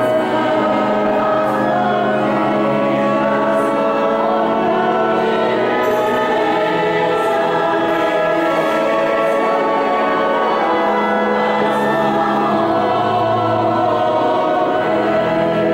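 Church choir singing a slow hymn in long held notes, as the entrance hymn of a Mass.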